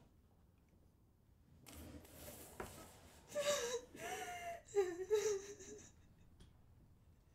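A woman sobbing: gasping, breathy intakes about two seconds in, then high, wavering whimpering cries for a couple of seconds before it fades.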